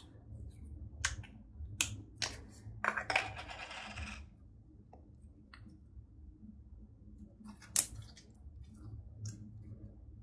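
Green slime being squeezed in a small cup and worked between the fingers: sharp sticky clicks and pops of trapped air, a crackly squelching stretch about three seconds in, and one loud pop about eight seconds in.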